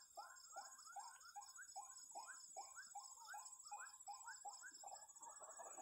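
Faint night chorus in a swamp: frogs calling in quick repeated notes, about four a second, with a steady high insect trill above.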